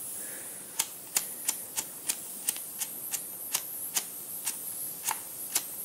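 Butane soldering iron being struck on the flint igniter in its cap to light it: a run of sharp, even clicks, about three a second, starting about a second in.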